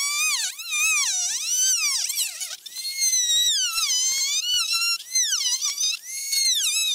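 Corded handheld rotary tool with a small cutting disc cutting through a plastic car panel. Its high whine sags and climbs in pitch over and over as the disc is pushed through the plastic along the cut line.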